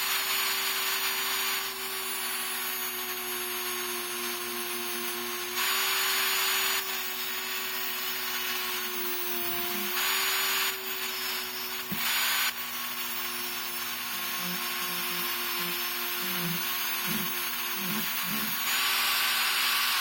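Rotary tool with an abrasive cutoff wheel running at a steady whine, grinding down the metal bit of a handcuff key; the sound turns louder and hissier in several short passes where the wheel bites into the metal. The tool winds down as it is switched off at the end.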